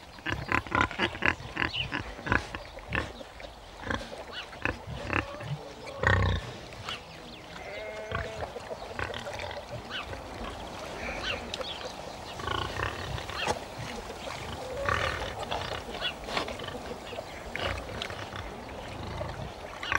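Domestic pigs grunting in quick runs of short strokes, a young boar and a sow during mating. There is a louder burst about six seconds in and a few higher pitched squeals near the middle.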